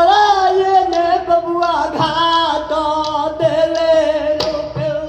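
A male singer's voice, amplified over stage loudspeakers, holding long wavering sung notes. A drum is struck about two seconds in and again near the end.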